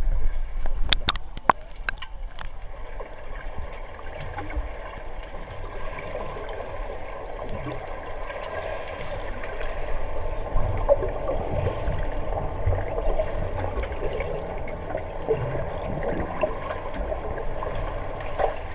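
Muffled water heard from a camera held underwater in a swimming pool: a steady gurgling wash stirred by swimmers, with several sharp clicks in the first few seconds.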